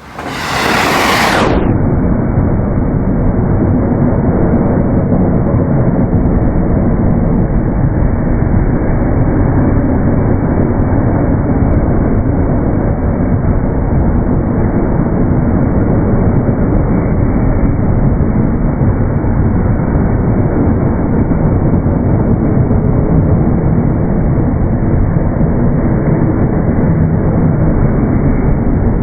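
Sound of an electric train passing a level crossing, slowed down with slow-motion playback: the pitch drops steeply within the first second or two, then the passing turns into a dense, deep, loud rumble that holds steady.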